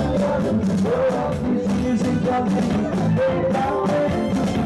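Live band music played over a PA: keyboard and drums keeping a steady beat under a male singer on the microphone.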